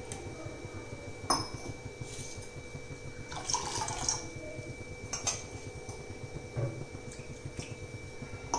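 Water poured from stainless steel vessels into a saucepan of soaked sago pearls, in short pours, with a sharp clink of steel about a second in and another a little past the halfway mark.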